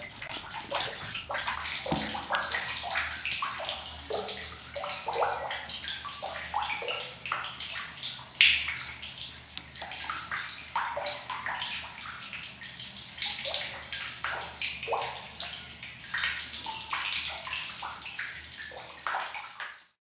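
Spring water pouring from a spout into a stone well basin, running and splashing unevenly. It stops abruptly at the end.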